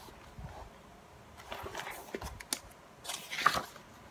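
Glossy paper pages of a photobook being turned and handled: soft rustling with a few light taps, and a louder page-turning rustle about three seconds in.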